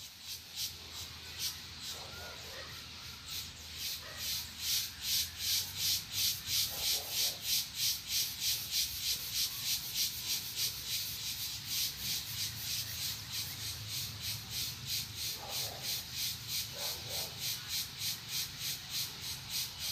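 An insect's rhythmic pulsing buzz, about four or five pulses a second, swelling in over the first few seconds, with a few faint short bird calls underneath.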